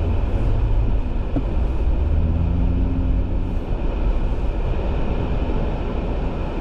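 A vehicle engine running in the snow, a steady low rumble with a faint higher engine note for a second or so in the middle.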